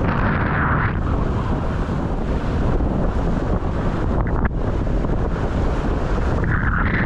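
Heavy wind buffeting the camera microphone, with water rushing past a windsurf board sailing at speed through choppy surf. A brighter hiss rises in the first second and again near the end.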